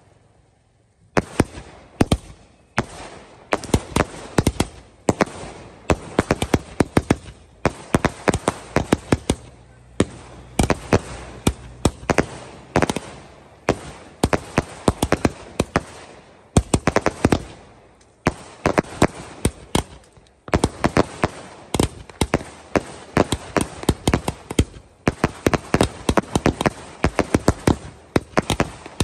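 Diwali firecrackers going off in rapid clusters of sharp bangs and crackles, one burst after another, starting about a second in with a few brief lulls.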